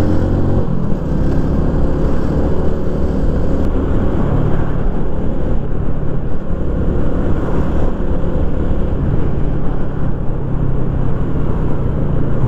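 Yamaha Lagenda 115ZR motorcycle riding along a road, its engine running under a heavy, steady rush of wind on the helmet microphone. The sound changes abruptly about a second in, where the footage cuts.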